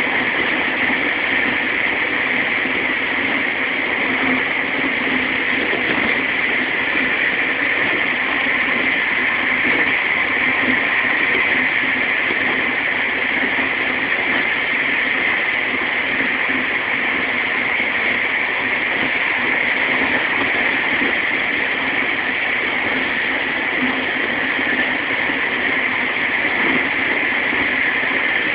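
JR Sobu Rapid Line electric commuter train running at speed, heard from inside the carriage: a steady, even running noise with no change in pace.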